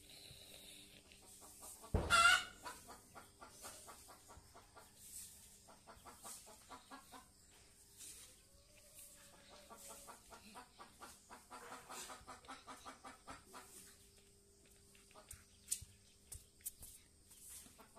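Chickens clucking in runs of rapid short notes, with one louder call about two seconds in, over a faint steady hum.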